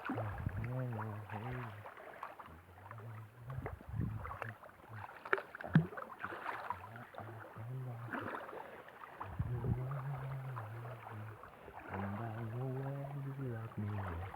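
A man's low voice singing or humming a tune in several held phrases, over water noise, with one sharp knock about six seconds in.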